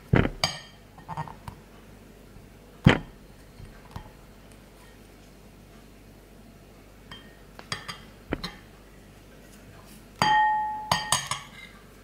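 A metal spoon knocking and clinking against a ceramic bowl during stirring: scattered sharp clinks, the loudest about three seconds in, and a cluster near the end in which one rings out briefly.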